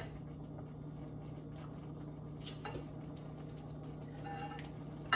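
Quiet kitchen sound: a steady low hum with faint liquid sounds from a pot of dinengdeng vegetable broth simmering on the stove, and a couple of soft small sounds as a spoonful is tasted.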